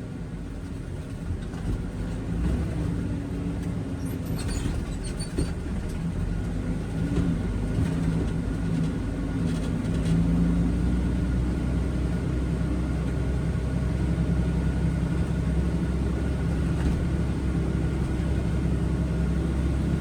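Concrete mixer truck's diesel engine running with a steady low hum, getting louder about seven seconds in.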